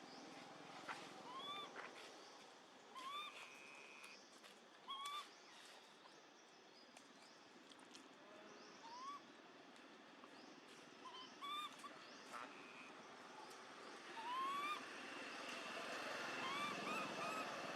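Baby macaque giving short, high-pitched, rising distress cries every second or two, calling for its mother. The cries grow louder and come closer together near the end.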